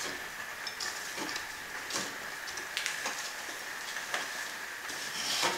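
Hand fret saw blade sawing through thin plywood in quiet, irregular strokes over a steady hiss, with a faint high hum.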